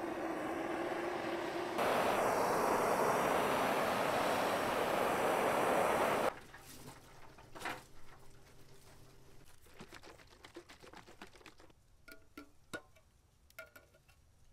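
Handheld gas torch flame hissing steadily as it chars wooden battens, growing louder about two seconds in and cutting off suddenly about six seconds in. After that, only faint scattered knocks and clicks.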